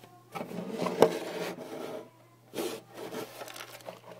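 Handling noise from the recording phone or camera: two spells of rubbing and scraping, with a sharp knock about a second in.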